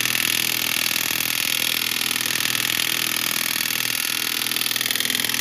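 Impact wrench hammering continuously on a lug nut, drawing a new wheel stud through the hub flange against a washer: a loud, steady, rapid rattling.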